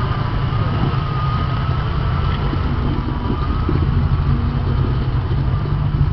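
Modified Jeep Wrangler's engine running at low, steady revs as the rig crawls up a rock ledge.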